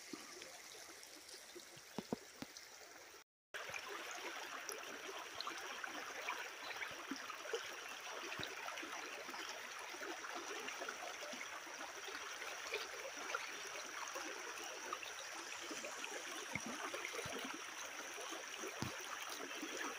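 Shallow river running over a low rock riffle, a steady rush and burble of water. After a brief dropout about three seconds in, it comes in louder and closer.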